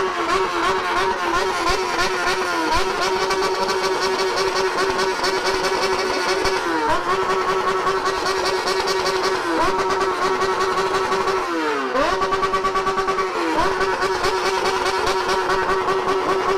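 Yamaha XJ6's inline-four engine through a straight pipe with no muffler, held at high revs with a steady high-pitched note. The revs drop briefly and climb straight back about five times.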